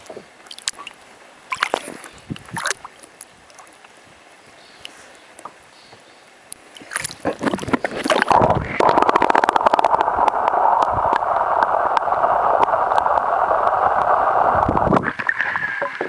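Muffled water sound from an action camera held underwater: faint scattered clicks and knocks at first, then from about halfway a loud steady rush of gurgling, sloshing water over the camera as it moves at the surface, cutting off abruptly near the end.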